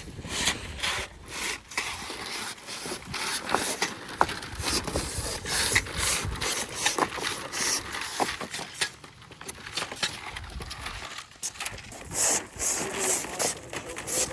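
Irregular scraping and rubbing with scattered sharp clicks, the noise of hands-on work handling materials.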